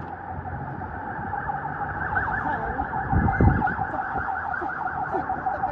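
A siren sounding in quick, repeated up-and-down yelps. About three seconds in there is a brief low rumble.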